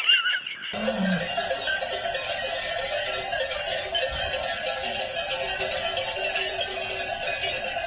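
Many livestock bells clanging together without a break, as from a herd on the move, beginning about a second in.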